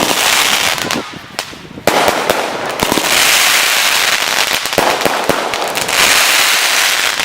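Aerial fireworks going off: a sharp bang about two seconds in, then dense crackling from many shells bursting at once.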